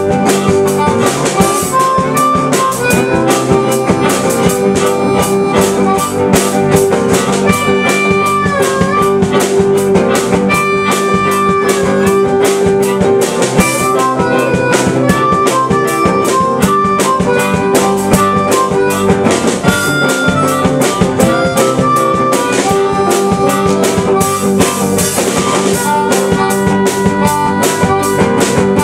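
Live blues jam: harmonica playing held notes, some bent in pitch, over electric guitar and a drum kit keeping a steady beat.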